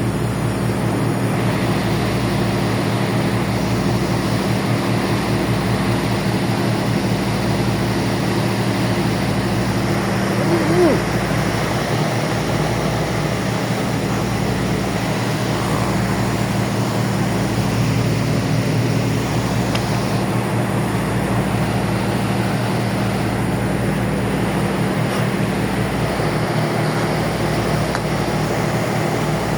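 Ferry's engines running with a steady low drone and a slow pulsing throb underneath. A brief wavering tone sounds about eleven seconds in.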